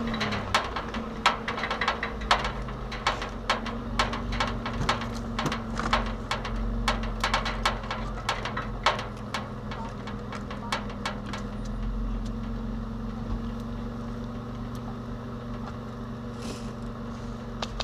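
A 1989 Toyota 4Runner's engine running steadily at low speed, with many sharp irregular clicks and knocks over it, thickest in the first half and sparser later.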